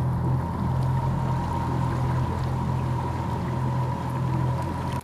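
Sightseeing boat's engine running with a steady low hum, with water rushing past the hull.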